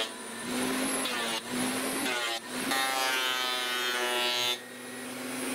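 Old Makita benchtop thickness planer running with a steady motor whine while planing an ash board. Its pitch sags briefly around two seconds in as the cutterhead takes the cut, then recovers.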